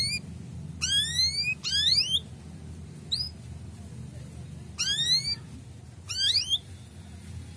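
Male domestic canary giving its 'cuit cuit' call: short bursts of fast, upward-sweeping chirps, five or six bursts about a second or two apart.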